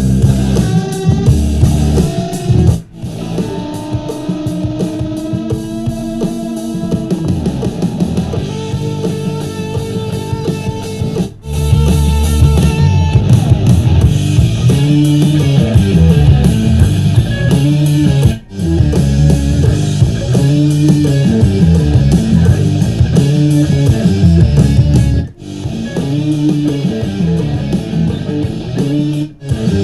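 Instrumental rock music with electric guitar, a heavy bass line and drums, played through a Huawei Sound Joy Bluetooth speaker. It briefly drops out four or five times, about every seven seconds.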